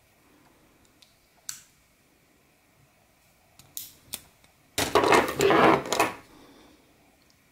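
A few sharp clicks from a folding knife's blade and lock as it is swung open, then, about five seconds in, roughly a second of loud metallic clattering as knives are shuffled on a pile of folding knives.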